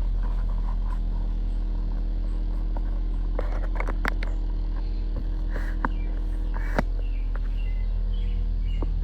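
A steady low hum runs throughout, with scattered sharp clicks and a few faint short high chirps in the second half.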